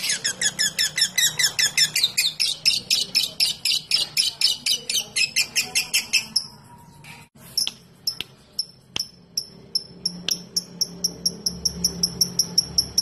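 Lovebird calling in a fast run of sharp, high chirps, about eight a second, which breaks off about six seconds in. After a few scattered clicks, a thinner run of short, very high ticking chirps starts near ten seconds.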